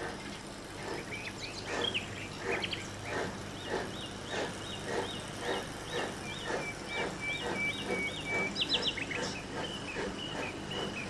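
Steam locomotive chuffing in a steady beat of about two to three beats a second, with a bird singing a run of repeated high chirps over it in the middle.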